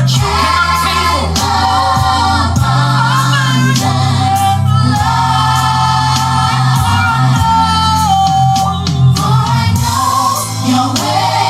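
Gospel song with choir and lead vocals over a heavy bass line, played loud through a Panasonic SC-VKX95 mini hi-fi system and its subwoofer. Deep bass notes are held and change every second or two.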